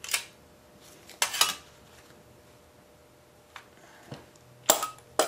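Locking pliers clamping and working the edge of a thin, warped sheet-steel engine backing plate to bend it straight: a handful of sharp metal clicks and clinks, the loudest pair about a second in and a quick cluster near the end, with quiet between.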